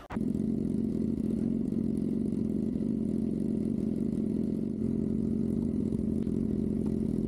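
Sport motorcycle engine idling with a steady low drone.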